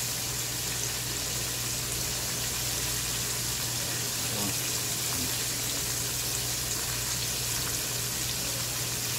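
Hot oil sizzling and bubbling steadily in a wok as chicken wings and freshly added french fries deep-fry, with a low steady hum underneath.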